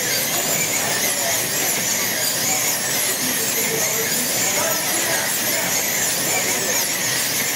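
Several wing slot cars' small electric motors whining at high speed around the track, many high-pitched tones overlapping and sliding up and down in pitch as the cars accelerate and brake through the turns.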